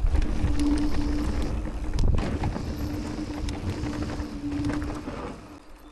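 Amflow electric mountain bike being ridden on a trail: rough rumble from tyres and wind with scattered knocks and rattles. A steady hum runs through most of it and stops about five seconds in, when the noise drops away.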